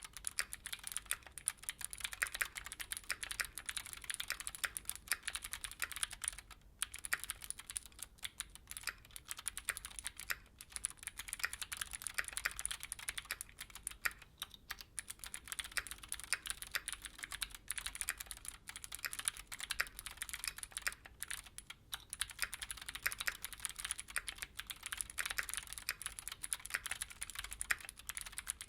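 Steady fast typing on a stock Keychron Q6 full-size mechanical keyboard fitted with clicky Gateron G Pro Blue switches: a dense run of sharp, crisp keystroke clicks with a few brief pauses.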